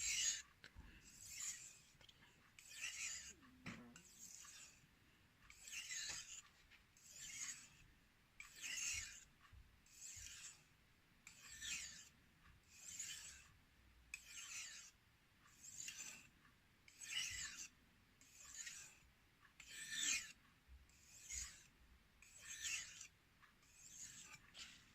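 Knife blade being stroked along a fine 5000-grit whetstone in freehand sharpening: a faint, even series of gritty hissing strokes, about one every second and a half.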